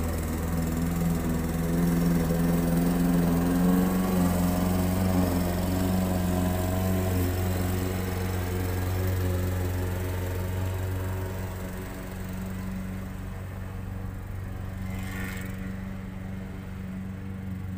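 Walk-behind gasoline lawn mower engine running steadily under load as it is pushed across grass. It grows louder as the mower comes close and fades as it moves away in the second half.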